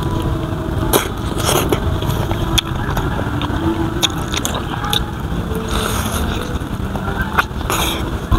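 Close-up biting and chewing of a smoked chicken drumstick with slightly crisp, chewy skin: irregular sharp wet clicks and smacks of the mouth. A steady low rumble runs underneath.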